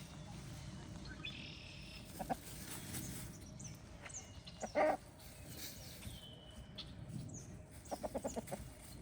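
Backyard chickens clucking as they forage. A single louder cluck comes about halfway, and a quick run of clucks comes near the end, with faint high chirps in between.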